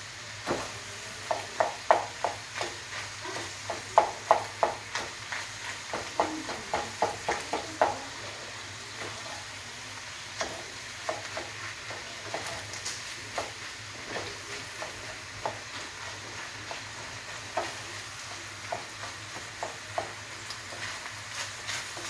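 A utensil knocking and scraping against a frying pan while stirring ground beef, hot dogs, ham and pork chorizo, over the steady sizzle of the frying meat. The knocks come thick and fast for the first several seconds, then thin out to occasional taps.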